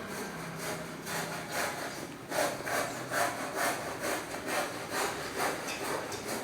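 Rhythmic scraping or rubbing strokes, about two to three a second, growing louder about two seconds in.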